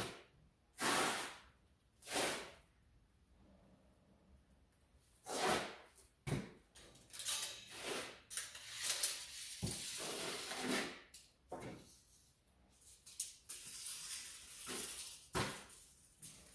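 Hand scrubbing on the steel frame of a torch cart, scuffing off rough paint and scaly rust to prepare it for primer: a few separate rasping strokes, then a faster run of scrubbing from about seven seconds in.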